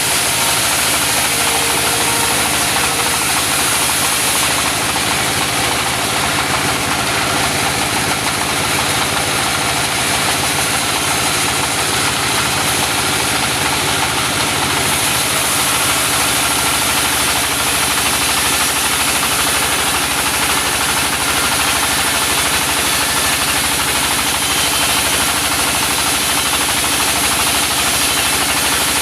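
Engine-driven mobile sawmill running steadily, its saw cutting through a large mindi log.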